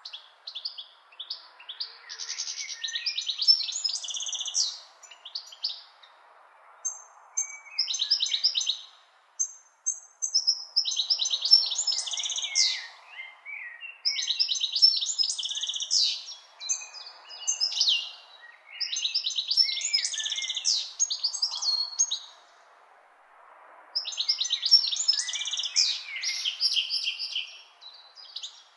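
A songbird singing a series of high, varied, warbling phrases, each a few seconds long with short pauses between them, over a faint steady rush.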